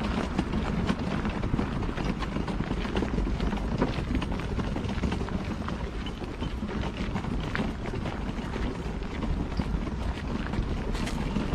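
Footsteps crunching on a gravel trail at a walking pace, many small irregular clicks over a steady low rumble of wind on the microphone.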